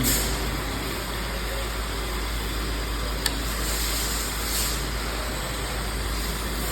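Steady background noise of motor vehicles, with a single sharp click a little over three seconds in.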